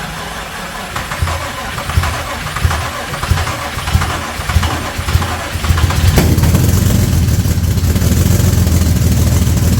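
Starter cranking the freshly rebuilt 3.5-litre V6 of an Infiniti G35 on its first start attempt, with uneven low pulses for about six seconds; the engine then fires and runs steadily and louder.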